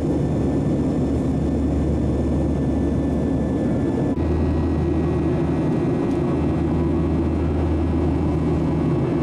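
Steady jet-airliner cabin noise inside a Boeing 737-800: the low drone of the engines and the rush of air, heard from a passenger seat during the climb. The low hum shifts slightly about four seconds in.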